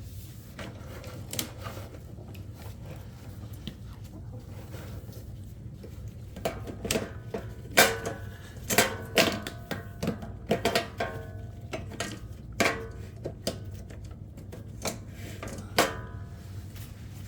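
Irregular clicks and clattering knocks of hard objects being handled, some with a brief metallic ring, sparse at first and coming thick and fast from about six seconds in, over a steady low hum.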